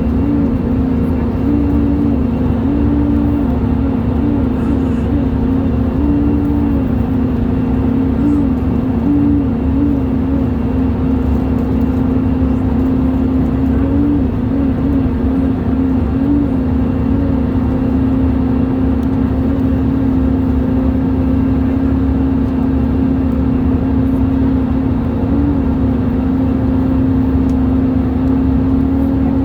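Loud, steady hum inside an Airbus A320 cabin in flight: one low droning tone over the constant rumble of engines and airflow. The tone keeps wavering a step higher and back, mostly in the first half. It is the unexplained strange noise that the title says gets worse in turbulence.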